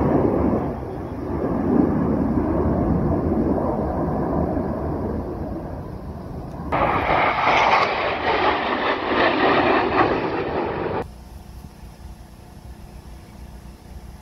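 Jet noise from a formation of Blue Angels F/A-18 Hornets flying overhead: a loud, steady rumble, then an abrupt switch about seven seconds in to a louder, harsher jet sound. That cuts off suddenly about four seconds later, leaving a faint, steady rumble.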